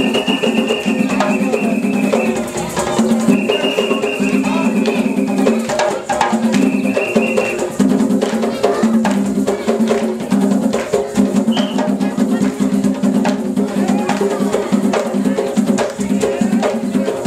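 Live African hand-drum ensemble playing a fast, dense rhythm on tall skin-headed drums. A long, high, steady tone sounds three times over the first eight seconds, each lasting one to two seconds.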